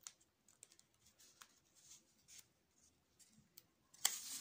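Pen writing on paper in short, faint scratching strokes. About four seconds in, a louder rustle of paper as the sheet is handled.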